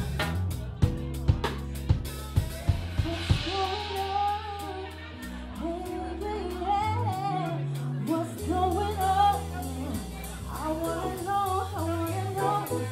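Live band playing: drums, bass and a lead singer. Sharp drum hits open the passage, a cymbal swells about two seconds in, then the singer carries a melody over held bass notes, with a steady hi-hat ticking in the second half.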